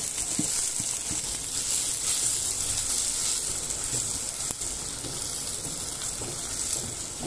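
Chopped tomato and onion sizzling in hot oil in a steel kadai as a silicone spatula stirs them: a steady frying hiss with a few light knocks.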